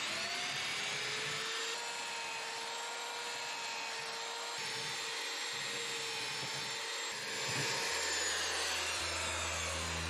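Power drill boring holes through a wooden plank: a steady motor whine with the bit grinding through the wood, the pitch falling near the end.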